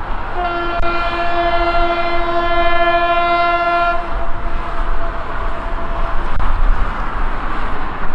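Diesel locomotive horn sounding one steady note for about three and a half seconds, then dying away over the rumble of the departing C30-M locomotive and its train.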